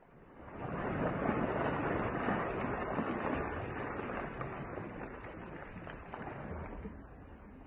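A rushing noise like wind or surf, with no clear pitch. It swells in over the first second, then slowly fades.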